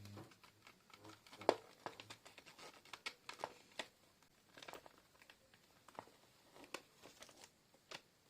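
Scattered small clicks, taps and crinkles of plastic parts being handled and pressed together as a Furby's back plate and speaker are worked into place, with one sharper click about a second and a half in.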